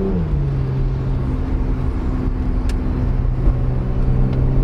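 Porsche's engine and road noise heard inside the cabin while driving, the engine note dropping in pitch at the start and then holding a steady low drone.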